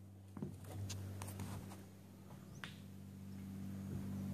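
Faint scattered taps and light knocks of someone walking across a bare OSB loft floor, the sharpest about two and a half seconds in, over a steady low hum.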